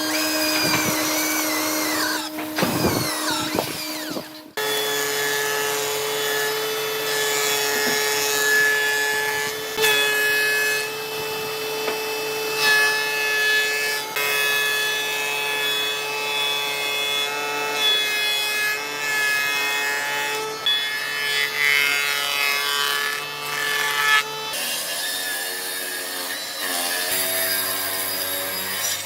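Electric power tool running and working wood, its motor whine holding a steady pitch. The sound changes abruptly about four seconds in and again near the end.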